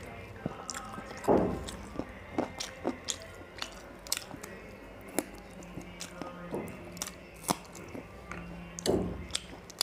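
Close-miked eating of chicken curry and rice by hand: wet chewing with irregular sharp mouth clicks and smacks, and a few longer squishing bursts near the start and near the end as the rice and gravy are worked with the fingers.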